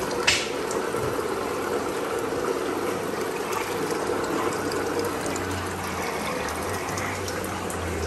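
Steady trickling and bubbling of water circulating through a betta breeding rack's rows of small tanks and PVC plumbing, with a low hum underneath. A short click sounds just after the start.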